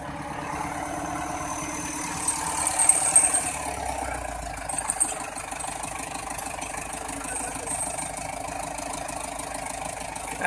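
Engine of a EUROSTAR 8240 farm tractor running steadily, a little louder for a moment about two to three seconds in.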